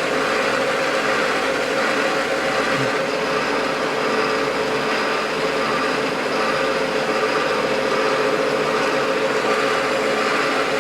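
Creworks 8x16 mini metal lathe running steadily under power, its motor and gear train giving an even hum with a steady tone.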